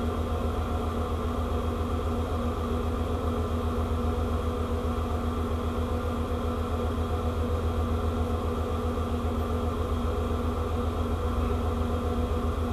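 Ship's machinery running with a steady low hum and a fast, even throb underneath.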